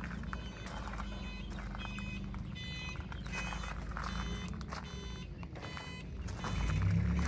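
Leeboy L1000T asphalt paver's diesel engine running steadily, with repeated short high-pitched metallic clinks and squeaks from the machine. The engine gets louder near the end.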